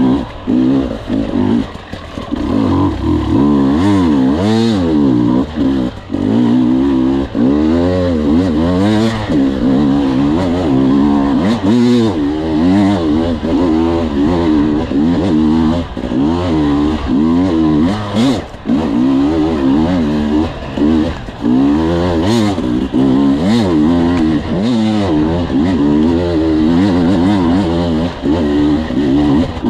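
Enduro motorcycle engine revving up and down continuously as the bike is ridden along a tight dirt trail, its pitch rising and falling every second or so with the throttle. A few sharp knocks cut in along the way.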